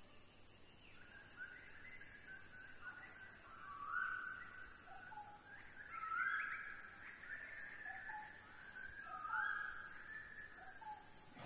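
A steady high-pitched insect drone, like crickets, under repeated bird calls. Each call rises quickly into a held note, and the loudest come about every two to three seconds.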